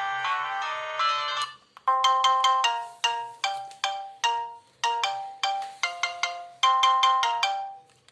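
Siemens A51 mobile phone ringtones playing: one tune ends on a held chord about a second and a half in, and after a short pause another begins, a quick melody of short, fast-fading notes that repeats its phrase about every three seconds.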